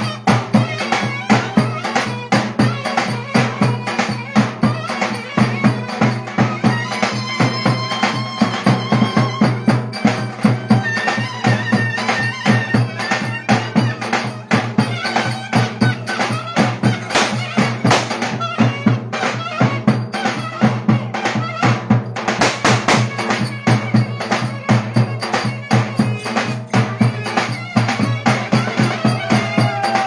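Two davul drums beat a fast, driving dance rhythm under a shrill reed wind instrument playing the melody: live Turkish folk dance music.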